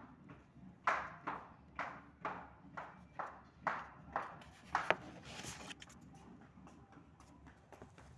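A quick, even run of light knocks, about two a second for some four seconds, followed by a brief hiss and faint handling noise.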